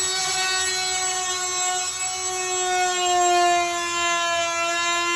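Corded oscillating multi-tool running steadily with a high-pitched buzz as its blade cuts into the bottom of a wooden door jamb, undercutting it so tile can slide beneath. Its pitch drops slightly about three seconds in.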